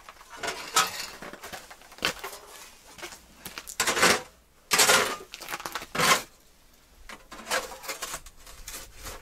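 Camping gear being handled and packed: irregular clatter of metal cookware and rustling, in short bursts with pauses between them.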